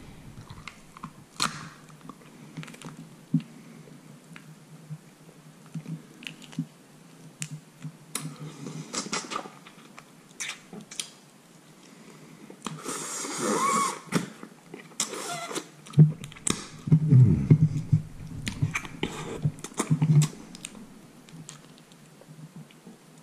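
Close-up eating sounds: a man chewing and sucking meat off a cooked rabbit head held in his fingers, with scattered small wet clicks and lip smacks and a longer sucking sound near the middle.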